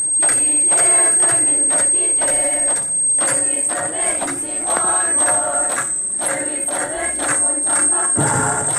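A group of girls chanting in a steady rhythm, with bamboo poles clapping together on the beat, as in a Naga bamboo dance. A thin, steady high-pitched whine sits underneath.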